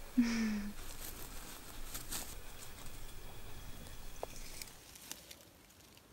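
Rustling in low blueberry bushes with a few light, scattered clicks as berries are picked and dropped into a hammered metal bowl. A short low hum, dipping slightly in pitch, comes just after the start.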